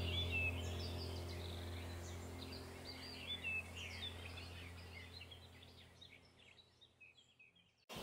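Many small birds chirping over a low steady drone, the whole track fading out evenly and gone about six seconds in.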